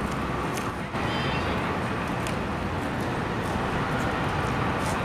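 Steady city street noise, mostly road traffic, with a few faint short clicks.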